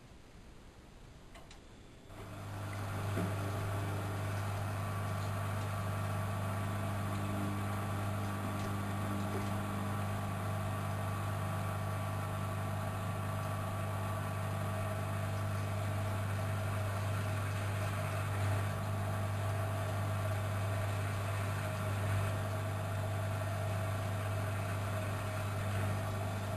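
Studio WM26AAA washing machine switching on about two seconds in and running with a steady, even low hum.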